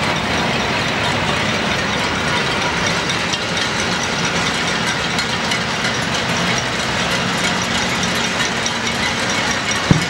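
Cacerolazo heard across a city from a high vantage point: many pots and pans banged at once, merging into a steady, dense clatter. There is a single low thump just before the end.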